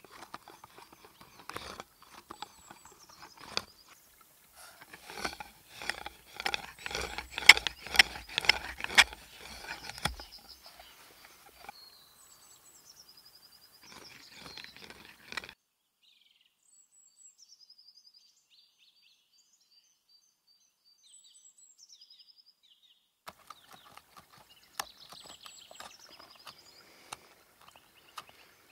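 Hand drill boring into a wooden disc, a rhythmic scraping and knocking at about two strokes a second that stops about ten seconds in. A small bird chirps over and over, then alone, and light tool clicks on the wood return near the end.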